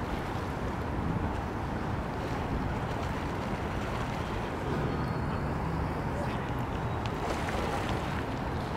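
Steady outdoor waterfront ambience, mostly wind on the microphone over a low, even rumble.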